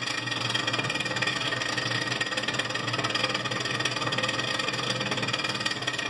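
Continental RFCT455 frost-free refrigerator's evaporator fan running with a steady, fast whirring rattle, as if it were catching on something. Ice is building up around it because the control board is not running the defrost cycle.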